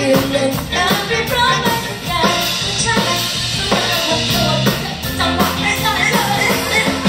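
Live band music played loud through a concert PA, with a steady drum beat and women singing into microphones.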